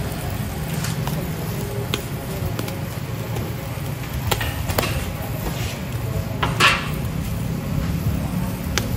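Bamboo skewers clicking against the wire grate of a charcoal grill as they are turned by hand, a few scattered clicks over a steady low rumble, with one short hiss about six and a half seconds in.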